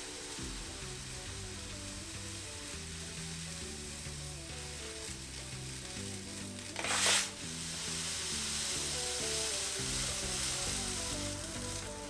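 Background music of held, stepping low notes over a steady hiss, with a short loud rush of noise about seven seconds in.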